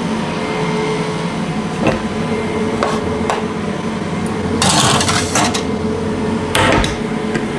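Kitchen work clatter: a few knocks of pans and utensils and a short burst of rattling and scraping about five seconds in, over a steady background hum.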